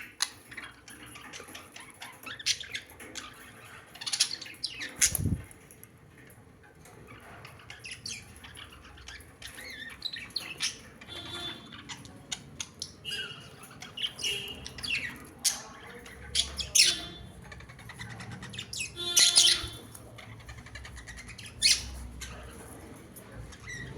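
Birds squawking and chirping in short, separate calls scattered throughout, with a single low thump about five seconds in.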